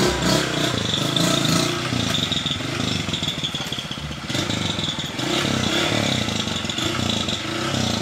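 Honda CG Titan motorcycle's single-cylinder four-stroke engine revving up and down under load while the bike is stuck in a rocky creek bed, working to climb free.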